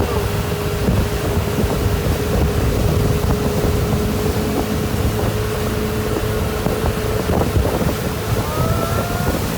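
Motorboat running steadily at speed, with wind buffeting the microphone and water rushing. Near the end a voice starts to call out.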